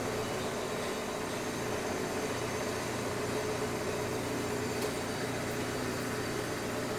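Construction machinery running steadily: a continuous mechanical din with one constant hum through it.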